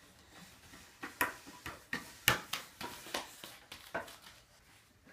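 A run of sharp wooden knocks and taps from toddlers' hands, knees and feet on a wooden climbing triangle and its slide board, the loudest a little over two seconds in.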